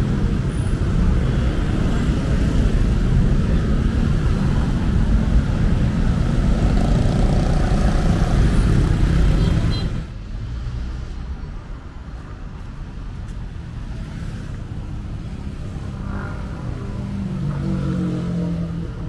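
Road traffic on a busy city street: vehicles passing with a continuous engine and tyre rumble, loud at first and dropping suddenly about halfway to a quieter, steadier traffic hum.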